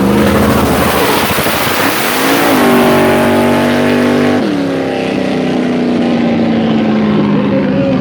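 Off-road vehicle engine revving: its pitch climbs about two seconds in, is held high, drops sharply a couple of seconds later, then winds down slowly, over a steady rushing noise.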